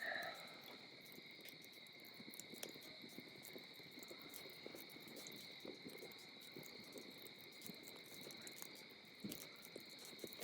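Faint evening chorus of crickets chirping steadily, a high-pitched drone in two pitches. Scattered soft crackles from a small campfire run through it.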